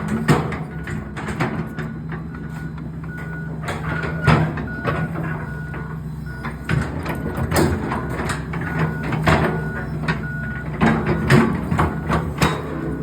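Heavy earthmoving machine running while it reverses, its backup alarm beeping about twice a second over the engine, with repeated clanks and knocks of metal and rock.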